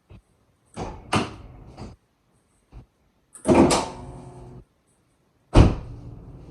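Three separate bangs about two seconds apart, the middle one with a short metallic ring.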